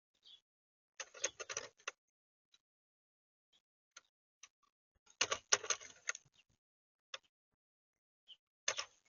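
Birds pecking at seed and scrabbling on a plastic feeder right by the microphone: three bursts of quick clicking and scratching, the middle one longest and loudest, with scattered single ticks between.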